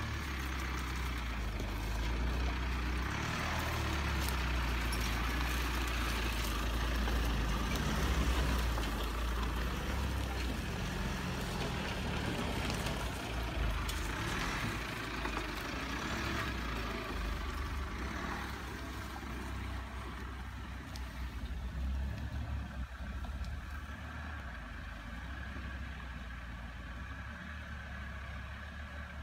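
Mitsubishi Pajero Sport SUV driving slowly over grassy off-road ground, its engine a steady low rumble that slowly fades in the second half as the vehicles move off.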